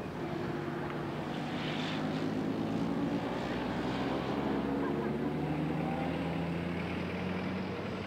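Diesel engine of a Type 96 eight-wheeled armoured personnel carrier running as the vehicle drives off, a steady low hum that holds one pitch and ends just before the close.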